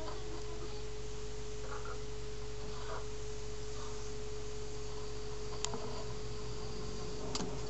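A steady electrical tone with a low hum beneath it, unchanging throughout, with two faint clicks about five and a half and seven and a half seconds in.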